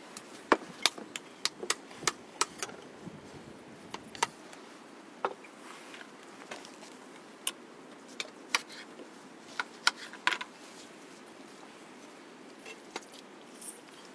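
Scattered sharp knocks and clinks of cooking utensils and dishes being handled, coming quickly in the first three seconds, then more sparsely, with a few louder ones a little past the middle.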